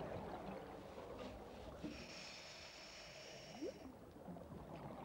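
Faint underwater ambience with a scuba diver's regulator breath: a hiss lasting under two seconds, starting about two seconds in. A short upward-sliding sound follows it.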